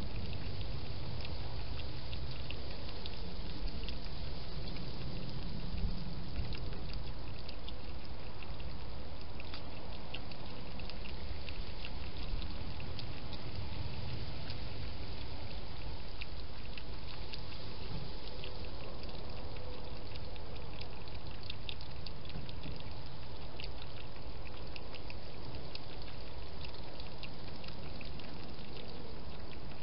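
Hedgehog eating or drinking with its muzzle down in a dish, making a long run of small, quick clicking mouth sounds over a steady hiss.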